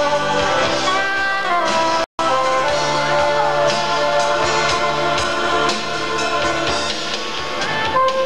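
Live rock band playing a song, drums keeping a steady beat under a held melody line. The sound cuts out for a split second about two seconds in.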